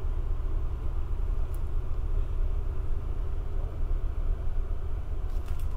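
Steady low rumble and hum inside an Amtrak Superliner sleeping car, with a few faint clicks near the end.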